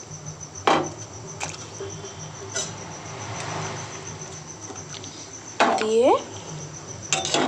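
A few sharp knocks and clinks of a spoon and bone-in chicken pieces going into a bowl of soup water, the first the loudest, with a soft swishing stretch a little after the middle. A steady, high, pulsing trill runs behind.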